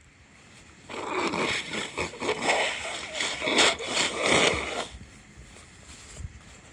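A person sniffling and breathing hard through an irritated nose after a stifled sneeze: a run of rough, noisy breaths with several louder snuffles, starting about a second in and dying away after about four seconds.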